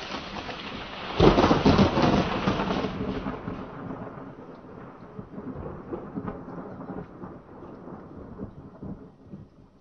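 A roll of thunder with rain: it swells sharply about a second in, then rumbles away, fading over the next several seconds.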